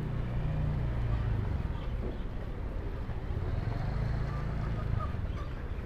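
An engine running at low, steady revs: a low drone that swells in the first second or so and again after about three and a half seconds.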